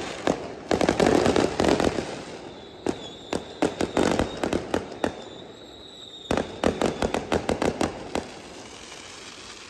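Fireworks going off: rapid strings of sharp bangs and crackles in three volleys, with a thin high whistle through the middle.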